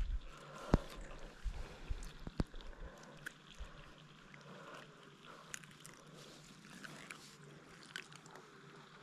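Two sharp knocks, about a second and two and a half seconds in, then scattered faint clicks over a quiet background.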